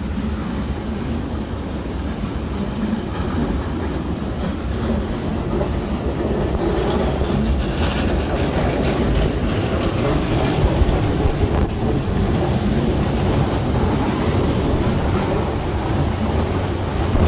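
Heritage train carriage rolling along, heard through its open window: a steady rumble with wheels clicking over rail joints and points, slowly growing louder.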